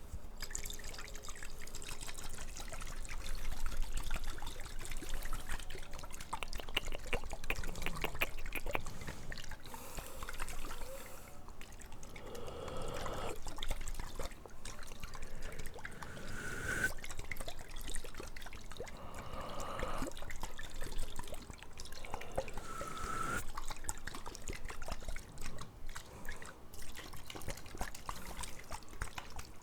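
Water being poured into glasses, trickling and splashing, with small clinks of glass. About four pours in the middle, each rising in pitch.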